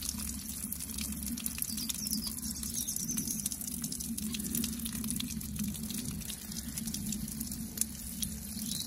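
Water from a 12-litre watering can's rose head showering steadily onto a rose bloom and its leaves, a continuous fine pattering splash.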